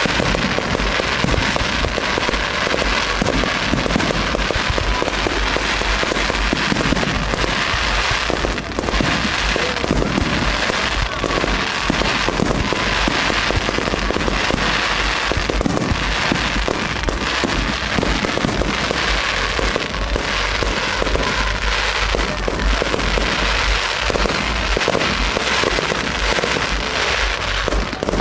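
Fireworks display: aerial shells launching and bursting, many bangs in quick succession with no let-up.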